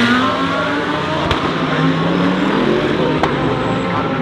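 GT3 race cars accelerating hard, their engine notes rising steadily, with two sharp cracks a couple of seconds apart.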